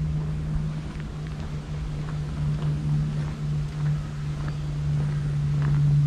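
A steady low hum from a motor, holding one pitch, over wind rumbling on the microphone, with a few faint short chirps in the second half.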